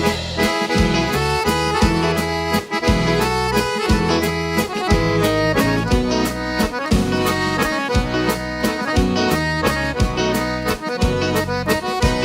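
Instrumental passage of a bandinha folk-band recording: accordion playing the melody over low bass notes and a steady drum beat, with no singing.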